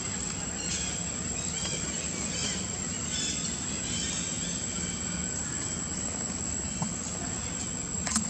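Outdoor ambience: a steady low rumble under a constant thin high whine, with faint short chirps about once a second and a sharp click near the end.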